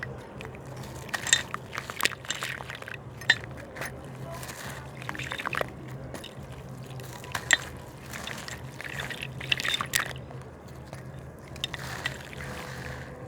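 A gritty slab crumbling and breaking apart in water: irregular crackles and sharp clicks as pieces break off, over sloshing and trickling water.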